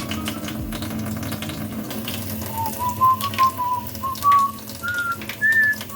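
A whistled tune of short clear notes that climb step by step in pitch through the second half, over a steady low hum.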